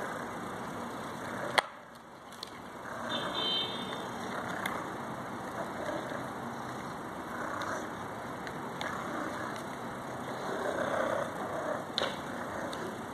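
Steady background noise like distant road traffic, with one sharp click about a second and a half in.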